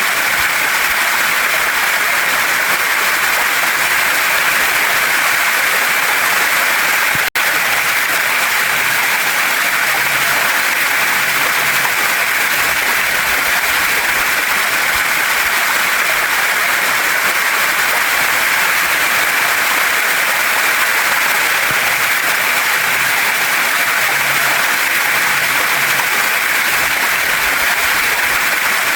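Waterfall and stream water rushing over rocks in a loud, steady, even roar, broken once by a split-second dropout about seven seconds in.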